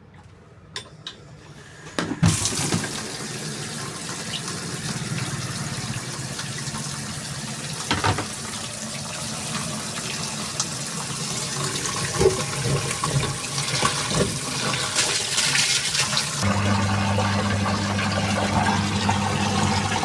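A couple of clicks, then about two seconds in, water starts rushing and sloshing loudly inside a MarQ washing machine's tub. About four seconds before the end a steady motor hum joins as the machine starts to spin.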